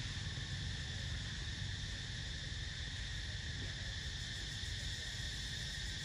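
Steady, high-pitched drone of insects, with a low rumble underneath.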